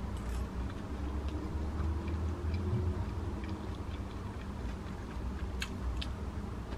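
Someone eating with metal chopsticks from a plastic bowl: faint chewing and a few light ticks of the chopsticks, two clearer ones near the end, over a low steady room hum.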